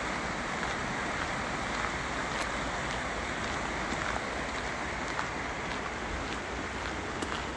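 Steady rush of a fast river running over rocks.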